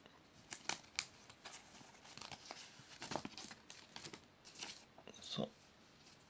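Banknotes being handled and moved about: short crinkling and rustling sounds, with a few sharper crackles about a second in.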